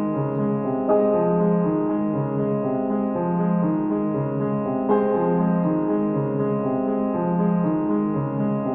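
Background music: gentle piano or electric-piano notes in a slow, repeating pattern.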